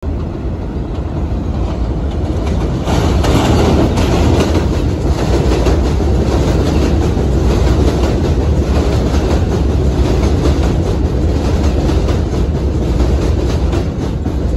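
New York City Subway R142A train pulling into an elevated station and passing close by, a steady rumble with wheels clicking over the rail joints. It grows louder about three seconds in as the cars come alongside.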